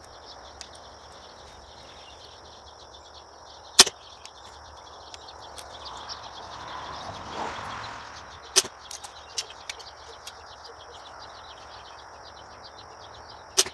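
A compound bow being readied and shot: two sharp clicks of handling a few seconds apart, then near the end a single sharp snap as the arrow is loosed.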